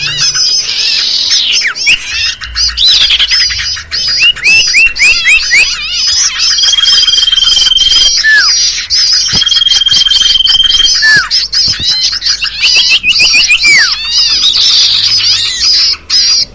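Bird lure recording for common iora (cipoh): a dense chatter of many small songbirds with fast, repeated high notes and quick downward chirps. Twice, a long steady whistle is held for over a second and ends in a sharp drop in pitch.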